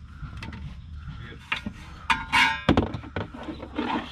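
Clicks and knocks of parts and lines being handled around a car's air-suspension strut in the wheel well, with a short rattle a little past two seconds and a dull thunk just after it.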